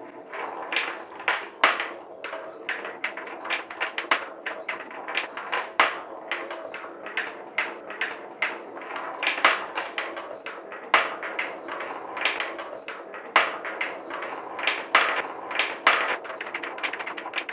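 Steel balls rolling along a wooden marble run track: a steady rolling rumble with frequent sharp clicks and clacks as the balls strike the bends, joints and each other, and drop into a collecting cup.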